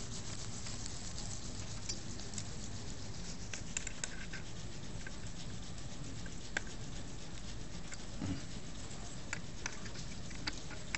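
Faint, irregular clicks and taps of a hand driver working the metal fixation pins of a Leksell stereotactic head frame, over a steady low room hum.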